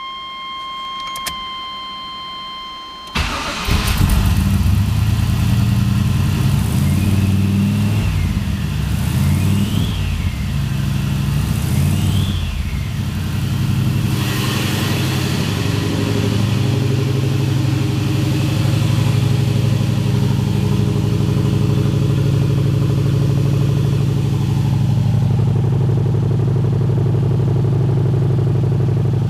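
Turbocharged car engine started about three seconds in, after a steady electronic tone. It is revved several times, with a turbo whine rising and falling on each blip, then settles into a steady idle.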